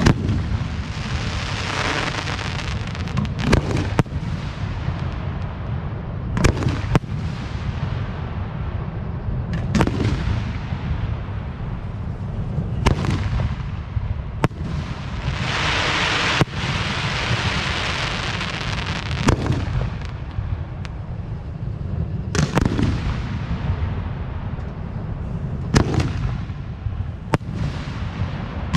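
Aerial firework shells bursting one after another, a sharp boom every few seconds, some in quick pairs. Twice a long crackling spell follows a burst, over a steady low rumble.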